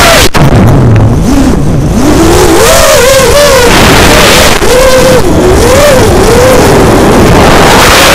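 Vortex 250 Pro racing quadcopter's brushless motors whining, heard from its onboard camera over heavy wind rush. After a sharp click near the start the pitch drops sharply, then climbs and falls in a series of swells as the throttle is pumped through the dive and pull-ups.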